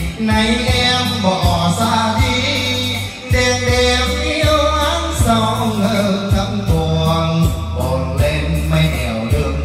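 Vietnamese ballad karaoke track playing loud through a speaker system, with heavy bass, a steady beat and a sung melody.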